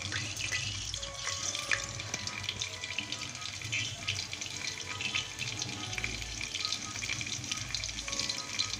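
Cumin seeds sizzling in hot mustard oil in the base of a pressure cooker: a steady frying hiss with many small crackles and pops.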